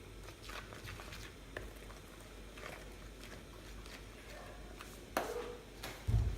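Cookie batter of flour, creamed butter and sugar being stirred in a mixing bowl: soft, irregular scrapes and taps, with a dull thump near the end.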